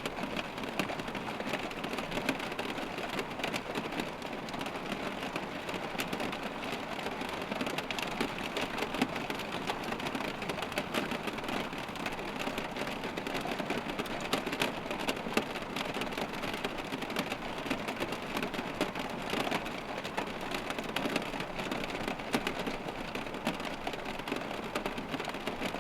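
Steady rain with hail mixed in, falling as a dense stream of many small hits.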